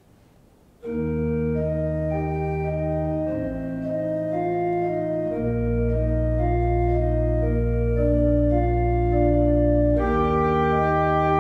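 Church organ playing, coming in about a second in: a slow upper melody over long held bass pedal notes that change every few seconds. The sound grows fuller and brighter about ten seconds in.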